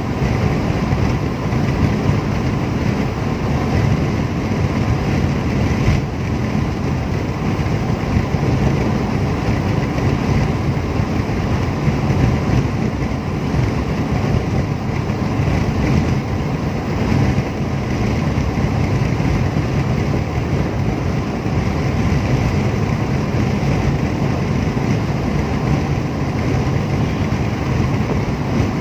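Steady cabin noise of a car cruising on an expressway: an even rumble of road and engine noise heard from inside the car, with no change in pace.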